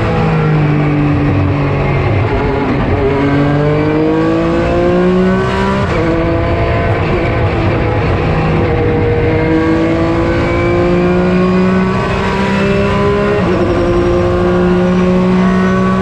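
Porsche 996 GT3 RSR's flat-six racing engine pulling hard through the gears, its pitch climbing steadily and then dropping sharply at each upshift, several times over.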